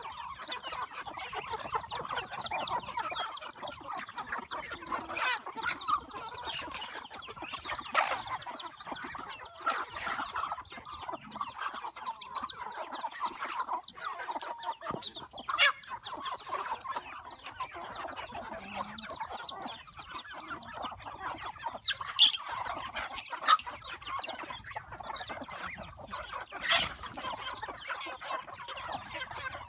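A flock of chickens clucking continuously, many short calls overlapping. A few sharp clicks stand out above the clucking now and then.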